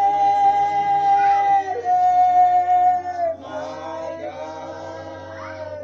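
A group of people singing slowly together at a graveside, holding long notes. The singing is louder for the first few seconds and quieter after about three seconds in.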